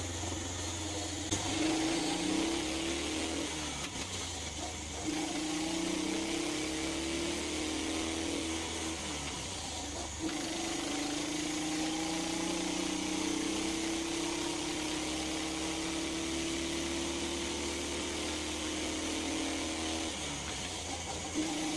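Duromax 440cc 18 hp single-cylinder small engine driving a car under load. Its pitch breaks off and comes back several times as the gears are changed, then rises slowly and steadily over the second half as the car picks up speed.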